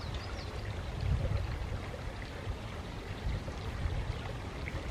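Wind buffeting the microphone outdoors as an uneven low rumble over a steady hiss, with a few faint high chirps near the start.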